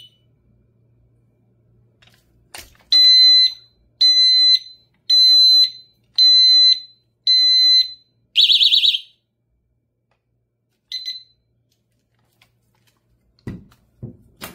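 Built-in alarm of a Blackstone BS14SS alarm U-lock: a click, then five loud beeps of about half a second each, roughly one a second, followed by a short warbling burst that stops abruptly. A brief chirp comes about eleven seconds in, and two low thumps near the end as the lock is handled.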